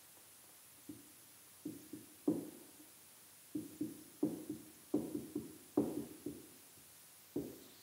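Marker writing numbers on a whiteboard: irregular short taps and knocks of the pen tip against the board, coming in small clusters as each figure is written.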